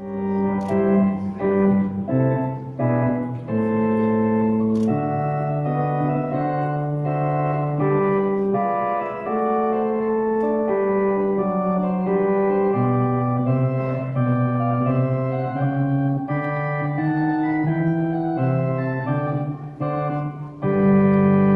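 Organ playing a processional in sustained chords that change every second or two, finishing on a loud full chord near the end.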